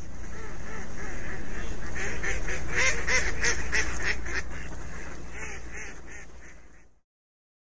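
A flock of ducks and geese calling, with many overlapping honks and quacks. The calls swell in, are densest around three seconds in, then fade away and stop about seven seconds in.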